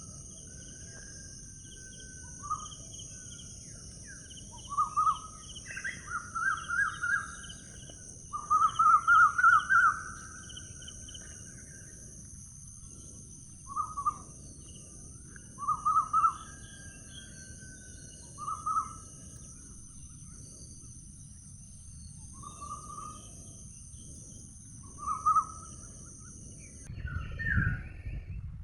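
Birds calling in outdoor ambience: short, pulsed calls come in small groups every second or two over a low background hiss. A steady high-pitched drone runs beneath them and cuts off suddenly near the end.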